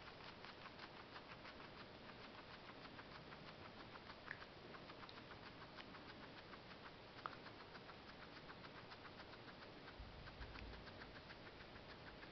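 Guinea pig chewing parsley: faint, quick, even crunches about five a second, with a couple of sharper clicks.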